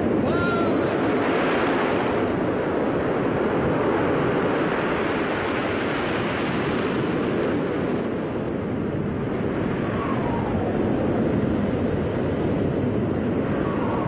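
Breaking sea surf: a dense, steady roar of waves that swells and eases slightly without letting up.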